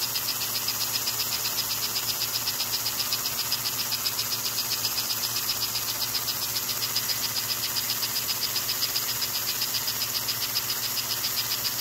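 American Flyer 287 toy steam locomotive running on the test track: a steady mechanical whir with a rapid, even pulsing, over a low electrical hum.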